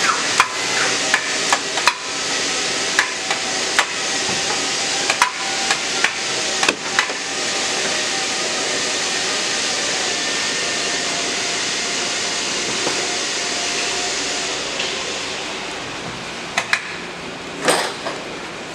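Workshop noise: a run of sharp knocks and taps for the first seven seconds or so, then a steady hiss with a faint hum, and a few louder knocks near the end.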